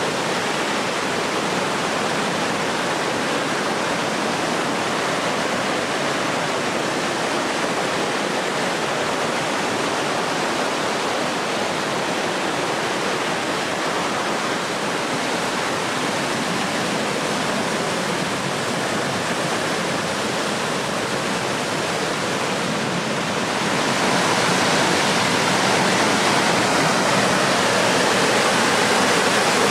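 Rushing water of a mountain stream tumbling over rocks and cascades, a steady, even roar that steps up louder and brighter about twenty-four seconds in.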